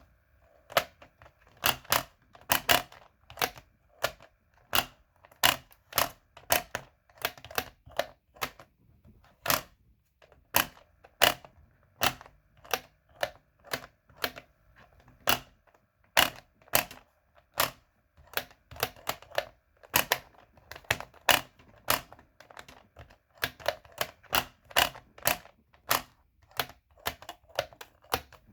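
Sharp plastic clicks from a pop-up toy as its buttons are pressed and the animal figures spring up, one or two clicks a second at an uneven pace.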